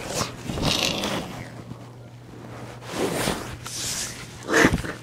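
Rustling and scraping handling noise in three short bursts: one at the start, one about three seconds in, and the loudest near the end. A faint steady low hum runs under them.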